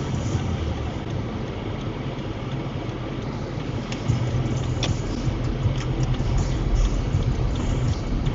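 Car on the move: a steady low rumble of engine and road noise, with a couple of faint clicks about five seconds in.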